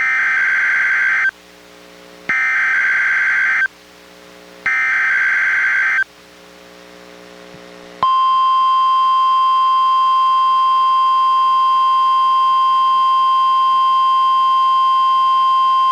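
NOAA Weather Radio emergency alert tones received on a Reecom R-1630 weather radio. Three warbling bursts of SAME digital header data come about a second apart. After a short gap with a low hum, the steady 1050 Hz warning alarm tone starts about eight seconds in, sounded as the required weekly test of the alarm.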